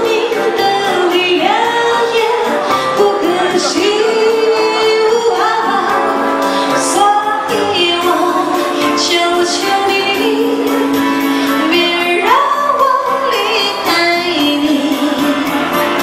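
A woman singing a pop song into a handheld microphone over instrumental accompaniment, her melody held in long sustained notes.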